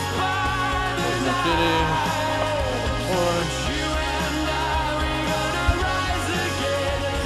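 Background song with a singing voice over a band accompaniment, at a steady level.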